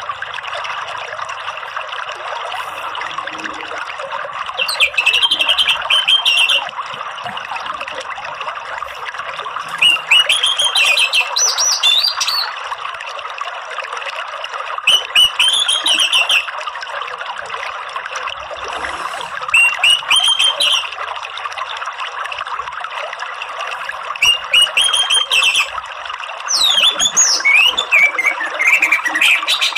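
Orange-headed thrush (anis merah) singing in short bursts of fast twittering notes, six phrases of a couple of seconds each, over a steady sound of running water.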